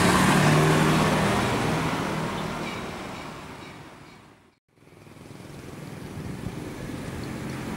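Street traffic with a motorcycle engine passing close, fading out to silence about four and a half seconds in, then fading back in as quieter traffic.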